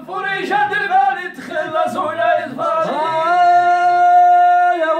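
Unaccompanied male singing voice: a few short sung phrases, then one long held note from about three seconds in that breaks off near the end.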